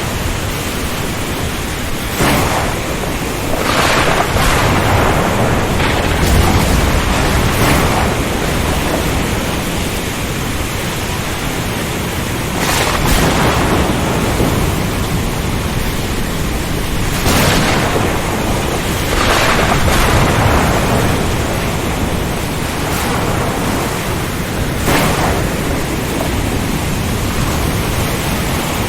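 Storm at sea: a steady wash of wind-driven rain and surf, swelling into brief louder rushes every few seconds.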